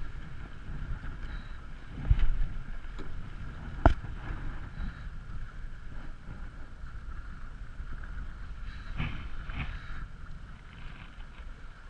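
Ultra 30 sailboat under sail: steady wind buffeting the microphone and the rush of the boat moving through the water. A thump about two seconds in and a single sharp knock just before four seconds.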